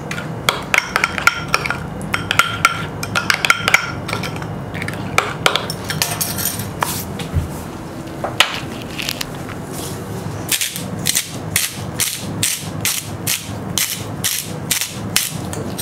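A spoon clinking against a small glass bowl while a marinade is stirred. From about ten seconds in, a hand-twisted salt grinder grinds over the bowl, an even run of dry clicks about three a second.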